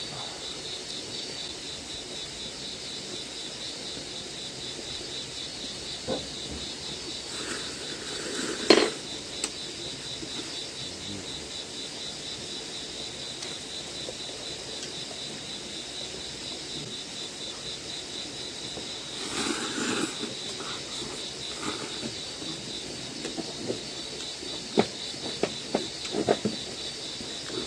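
Crickets chirping steadily in a high, evenly pulsing trill, with a few sharp clicks, the loudest about nine seconds in.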